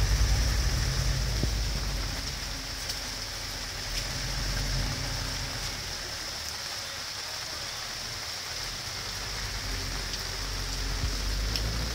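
Rain falling steadily on the pavement, the table and the awning overhead. Beneath it is a low rumble, strongest in the first couple of seconds and again near the end.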